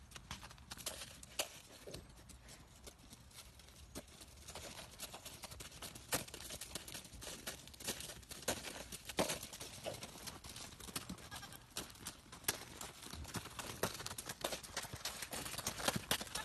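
Faint, irregular crunching steps in snow. A goat bleats near the end.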